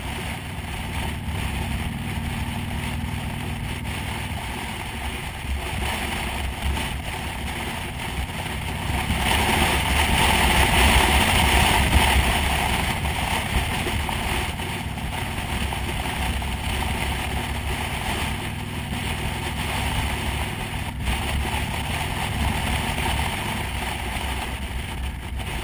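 Motorcycle engine running at cruising speed, with wind rush over the rider's microphone. The sound swells louder for a few seconds near the middle.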